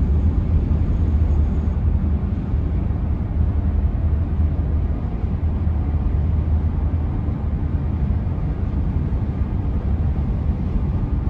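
Road noise of a moving car heard from inside the cabin: a steady low rumble.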